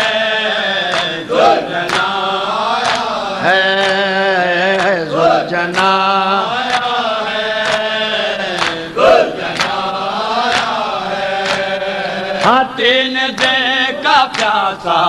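Male voices chanting a noha, a Shia lament, over a microphone. Sharp slaps of hands on bare chests (matam) recur under a second apart, keeping time.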